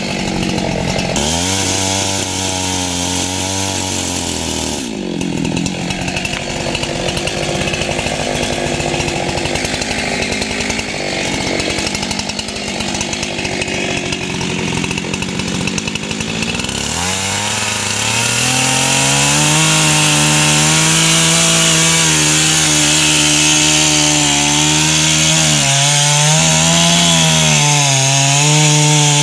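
Husqvarna two-stroke chainsaw cutting into a boxelder trunk, its engine pitch dipping and recovering as the chain bites into the wood. About two-thirds of the way in it revs higher and runs louder and steady under load, the pitch wavering.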